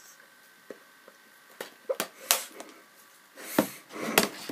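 A plastic DVD case clicking and knocking as it is handled, a handful of separate sharp clicks, then two short bursts of rustling noise near the end.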